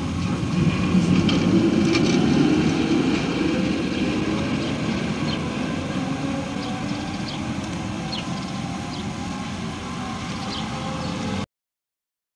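Inside a 1954 Hansa-built T4b tramcar running on street track: the electric traction motors hum over a dense rumble of wheels and rails, with light squeaks and clicks. It grows louder over the first couple of seconds, then slowly eases, and cuts off abruptly near the end.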